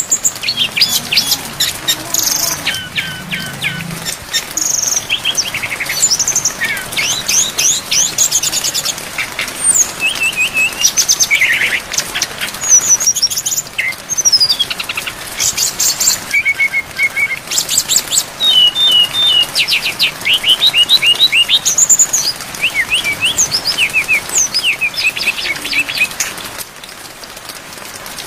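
A brown-chested jungle flycatcher sings a long, varied song of quick trills and whistled notes over the steady hiss of rain. The song stops about 27 seconds in, leaving only the rain.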